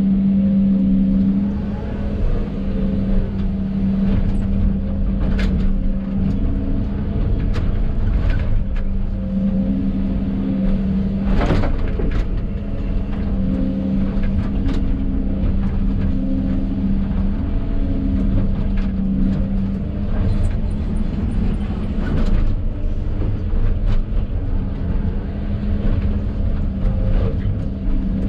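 Hidromek 220 excavator's diesel engine and hydraulics running steadily, heard from inside the cab, the hum swelling and easing as the arm and bucket are worked. Occasional knocks and clanks sound through it, a louder one a little before halfway.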